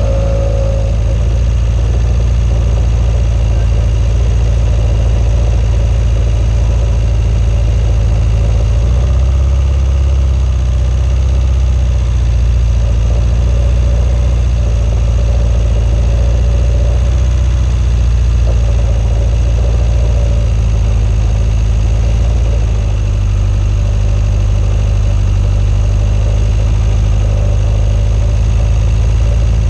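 Swamp buggy engine running steadily as the vehicle drives across soft muskeg, a loud low drone. The engine note shifts slightly about nine seconds in.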